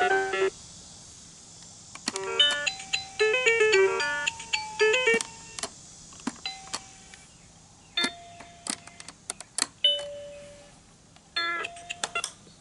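VTech Touch and Teach Turtle's electronic speaker playing short chiming tune snippets as its musical foot buttons are pressed. One tune cuts off about half a second in and another runs from about two to five seconds. After that come scattered single tones and sharp clicks, then a brief tune near the end.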